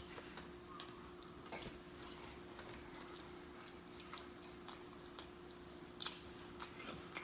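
Faint chewing of pizza, with scattered soft mouth smacks and clicks at irregular intervals; a faint steady hum runs underneath.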